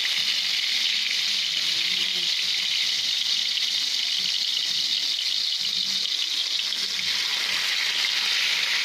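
Fish steaks sizzling steadily in hot oil in a wok.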